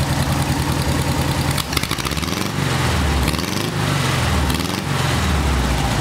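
36-horsepower air-cooled VW flat-four engine, warmed up, idling steadily, then blipped several times by hand at the carburetor. It revs up and drops back quickly each time before settling back to idle, showing a quick throttle response.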